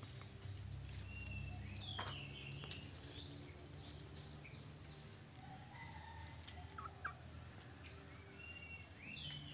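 Hens making short, high calls as they feed, with a few sharp clicks over a steady low hum.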